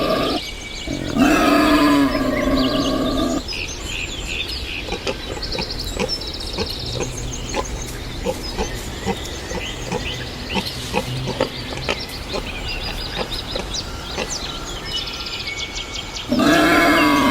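Wild boar grunting and snuffling in a run of short, quick grunts. A long, wavering, pitched call sounds at the start and again near the end.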